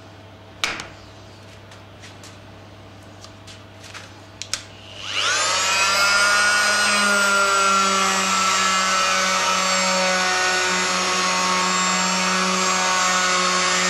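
A sharp click and a couple of small knocks, then about five seconds in a Fein oscillating multi-tool starts, runs up quickly and settles into a steady high whine as its triangular pad sands cork roadbed.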